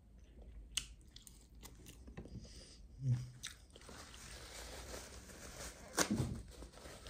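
Close-up chewing and biting of crispy roasted chicken drumstick, with short mouth clicks and crunches. In the last few seconds a paper napkin is pulled out and rustled, with one sharp crackle about six seconds in.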